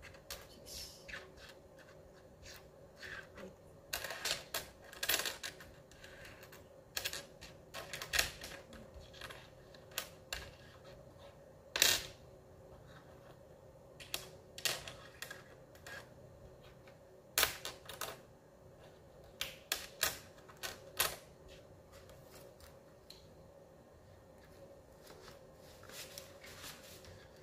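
Dirham coins clinking and clicking as they are picked out of a loose pile on a wooden desk and stacked by hand, in irregular taps with a sharper clink about twelve seconds in.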